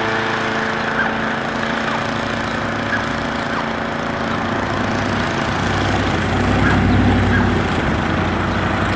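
Small motor running steadily with a constant-pitched hum; a deeper, louder rumble builds up about six seconds in.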